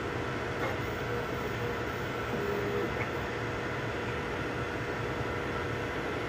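3D printers running mid-print: a steady whir of cooling fans and stepper motors, with faint steady tones and a brief change in motor pitch about two and a half seconds in.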